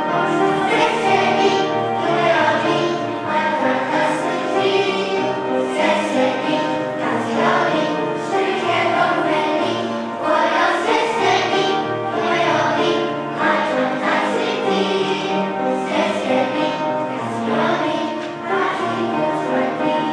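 A children's choir singing a song, with notes held and moving smoothly from one to the next without pause.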